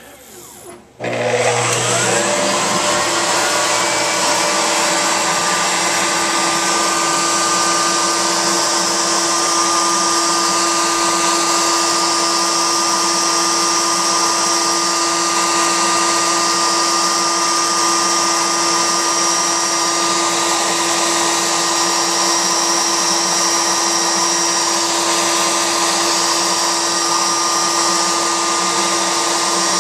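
Wood router on a homemade CNC router table switching on about a second in, spinning up with a rising whine and then running at a steady high pitch as its bit carves into a board.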